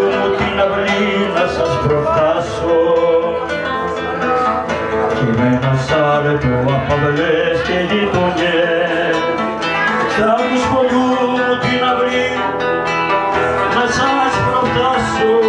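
A man singing a song live to his own acoustic guitar accompaniment.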